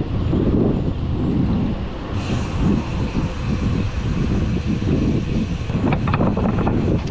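Riding noise from a bicycle on a road: wind buffeting the microphone in a fluttering low rumble, mixed with passing traffic. A steady hiss joins about two seconds in and stops just before the end.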